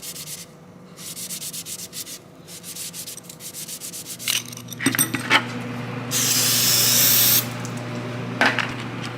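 Quick repeated rubbing strokes on an antenna part, like scrubbing or brushing it clean. About four seconds in a steady low hum starts, with a few clicks, and then a hiss like a spray that lasts just over a second.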